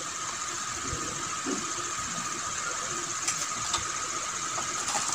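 Steady room hiss with a faint high whine, broken by a few faint light clicks.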